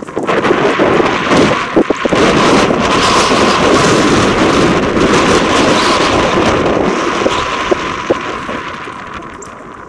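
Heavy, gusty wind buffeting the microphone, over a steam locomotive working toward it; the wind eases off over the last few seconds.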